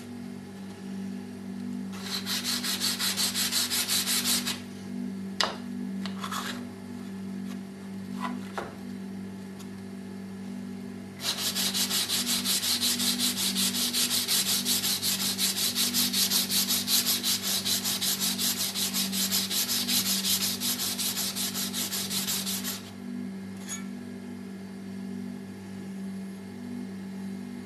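Steel card scraper's long edge rubbed rapidly back and forth on a 600–800 grit sharpening stone, held square against a wooden block, to polish the edge. The strokes come in a short spell about two seconds in and a long spell of about eleven seconds from near the middle. A few handling clicks fall between them over a steady low hum.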